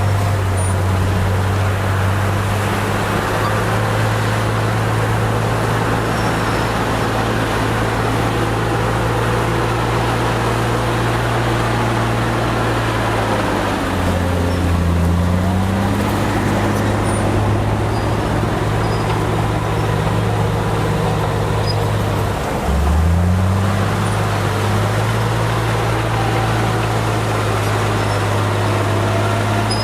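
Heavy diesel engine of earthmoving machinery running steadily. Its pitch dips and climbs back twice, about halfway through and again near three-quarters of the way.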